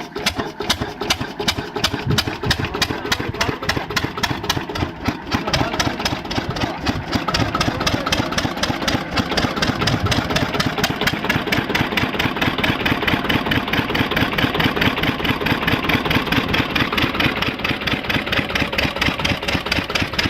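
Engine of a soil washing machine running steadily with a fast, even beat; it gets a little louder and fuller from about seven seconds in.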